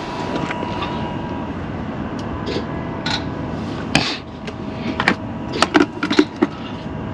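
Diesel truck's fuel system being primed to refill the fuel filter: a steady hum with a faint whine for about four seconds, then several sharp clicks and knocks.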